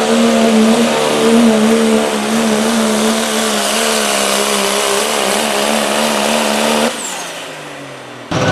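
Dodge Ram 3500's Cummins diesel engine at full throttle under heavy load, dragging a pulling sled, its pitch sagging a little as the sled bogs it down. About seven seconds in the throttle is let off at the end of the pull, and the revs fall away with a high whistle winding down.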